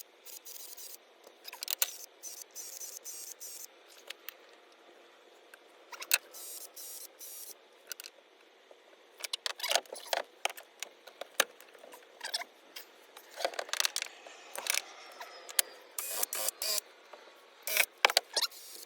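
Irregular light clicks, taps and rustles of hand work with tools and materials, busier in the second half; no power tool is running.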